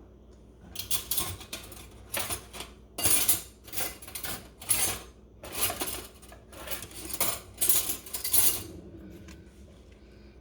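Metal spoons clinking and clattering against dishes as a smaller spoon and a spoon rest are fetched: a run of about a dozen short, sharp clinks that stops about nine seconds in.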